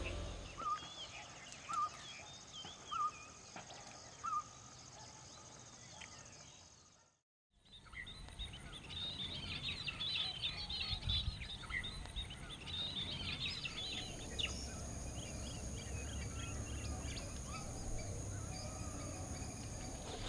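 Birds calling: one bird repeats a short chirp about once a second, then after a brief cut, many small birds chirp densely together before thinning out.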